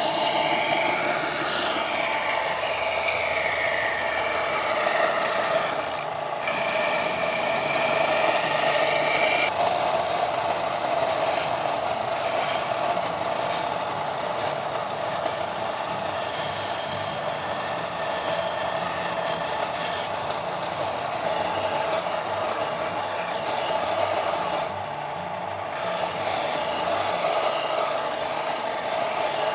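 Belt sander running with a hickory axe handle pressed against the moving abrasive belt, grinding the wood down to shape. The pitch shifts as the pressure changes, and the grinding lets up briefly twice, once about six seconds in and again near the end.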